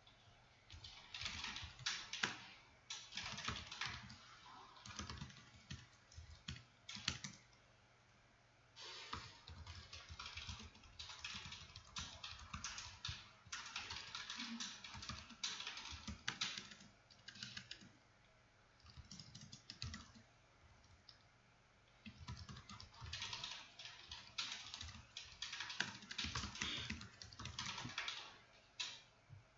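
Typing on a computer keyboard in quick runs of keystrokes, broken by a few short pauses.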